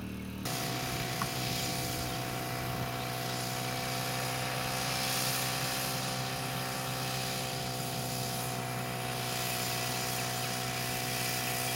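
An engine running at a steady speed: a constant droning hum that holds one pitch throughout, with hiss over it. It cuts in abruptly about half a second in and cuts off at the end.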